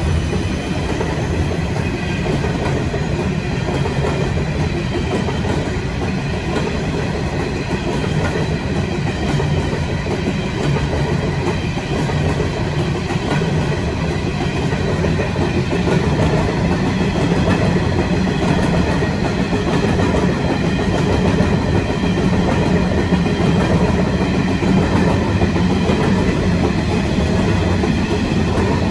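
Freight train of coal hopper wagons rolling past at slow speed: a steady rumble of wheels on rail, with a faint high whine over it.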